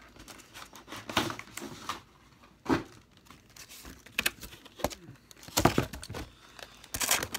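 Plastic packaging of a Pokémon trading card box crinkling and tearing as it is unwrapped by hand, in irregular bursts of rustling, quieter for a moment in the middle and busiest near the end.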